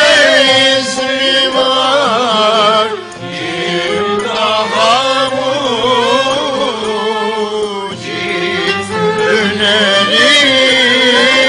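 Live Turkish fasıl music: voices singing a wavering, ornamented melody over a small ensemble with violin. The singing breaks briefly between phrases about three seconds in and again near eight seconds.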